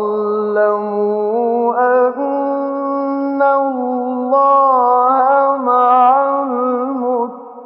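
A male Quran reciter chanting in the melodic mujawwad style: one long held phrase that steps up in pitch and is ornamented with wavering runs, fading away near the end.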